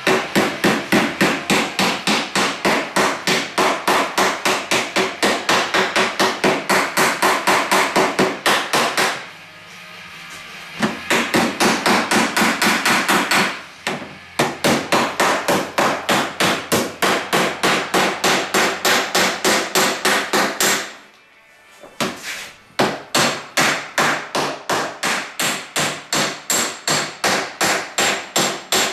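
Hand hammer striking a dolly held against a steel door skin's hem flange, rapid metal blows at about four a second in long runs with a few short pauses. The blows are folding the new skin's hem seam over the door frame.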